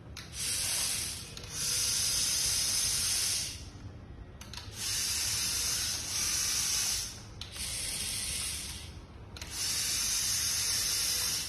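Hissing in about six separate bursts, each lasting one to two seconds, with short gaps between them.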